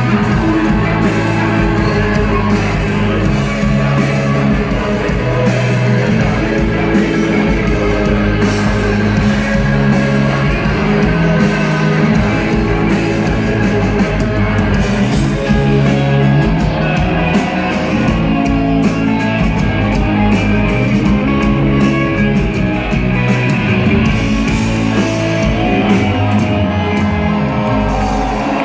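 Live rock band playing loud, with electric guitars through Marshall amplifiers and drums, heard from within the crowd.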